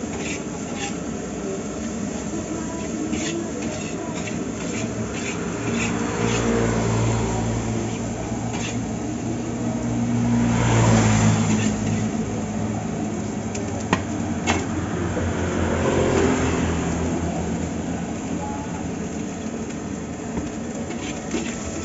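Metal spatula scraping and clinking against a wok of frying rice, under passing heavy road traffic whose engine drone swells and fades several times, loudest about halfway through.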